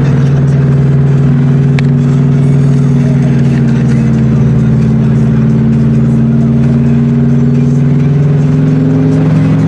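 Subaru WRX's turbocharged flat-four boxer engine running at a steady speed, its note holding almost unchanged throughout.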